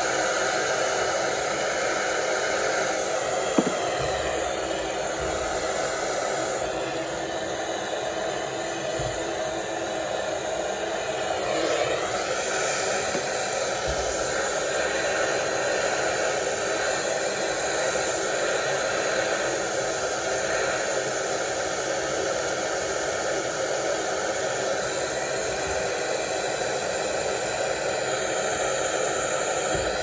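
Handheld gas torch burning with a steady hiss as it heats copper pipe fittings for soldering. There is one sharp click a few seconds in.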